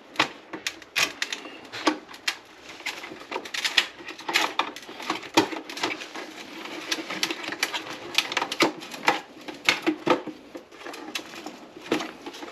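Irregular clicks, knocks and rattles of a bathroom exhaust fan's housing and motor assembly being worked by hand while trying to pop the motor out.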